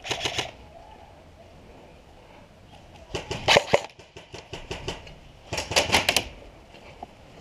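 Airsoft electric guns firing short full-auto bursts, rattling at about ten shots a second. One burst cuts off just after the start, and two more come about three seconds and five and a half seconds in, each under a second long.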